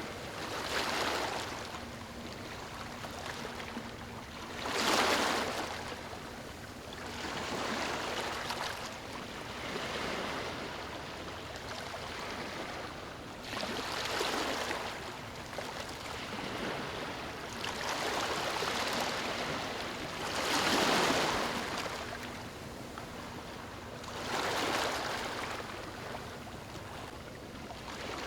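Small waves lapping on a beach. Each wash of surf swells and fades every few seconds, with two stronger waves standing out.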